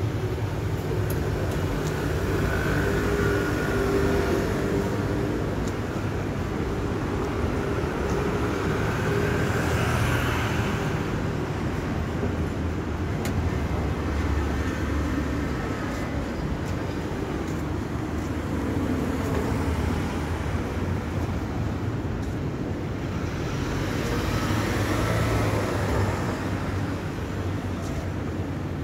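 Street traffic: a steady hum of car engines and tyres on the road, swelling and fading several times as vehicles drive past.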